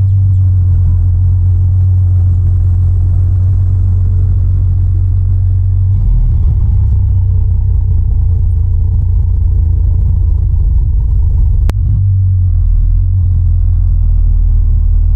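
Diesel engine of a Lanka Ashok Leyland cargo truck running at low revs, a steady low rumble that shifts slightly about six seconds in and again near twelve seconds. A single sharp click just before the twelve-second mark.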